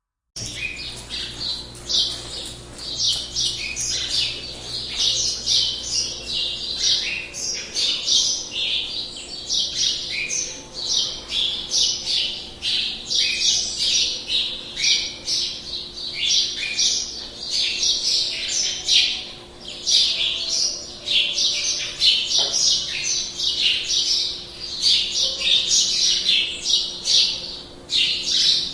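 Many birds chirping and squawking at once, short high calls overlapping densely throughout, like a flock. A faint steady hum lies underneath.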